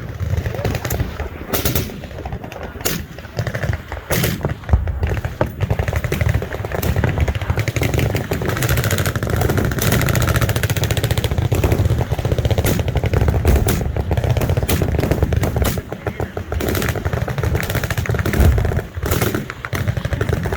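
Machine-gun fire from several guns on a firing line: a few separate loud shots and short bursts at first, then long, overlapping strings of rapid automatic fire through most of the rest.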